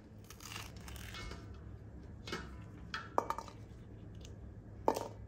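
Fresh broad bean (fava) pods being split open by hand: crisp snapping and tearing of the green pods, with a few sharp clicks as shelled beans drop into an enamel bowl.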